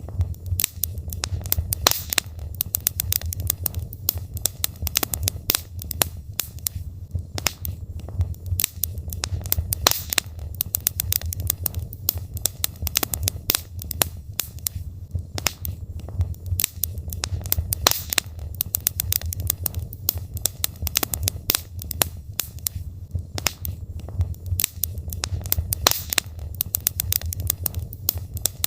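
Burning logs in a fireplace crackling, with many irregular sharp pops over a steady low rumble of the fire.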